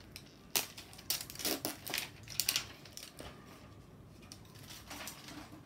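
Plastic packaging crinkling and rustling as it is pulled off an L.O.L. Surprise Under Wraps doll capsule by hand. The crackles come in short, irregular bursts, thickest in the first three seconds, then fewer and fainter.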